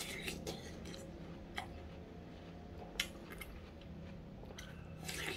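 Watermelon being bitten and chewed close to the microphone: a few short, crisp, crunchy clicks and wet crackles, the loudest about three seconds in and just before the end.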